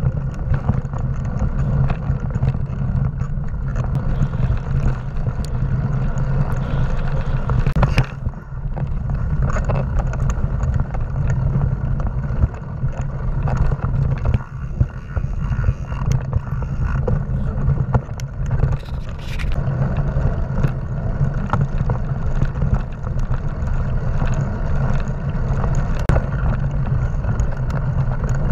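Mountain bike riding fast over a dirt forest singletrack, heard from an action camera riding along: a steady low rumble of tyres and wind, with frequent sharp rattles and knocks as the bike goes over bumps and roots.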